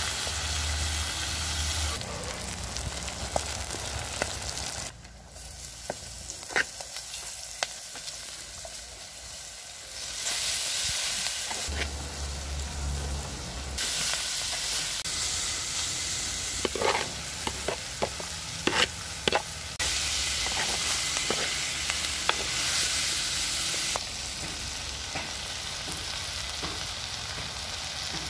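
Food sizzling and frying in a clay pot while it is stirred with a wooden spoon, which scrapes and knocks against the pot; the hiss shifts abruptly several times, and a run of sharp knocks comes about two-thirds of the way through.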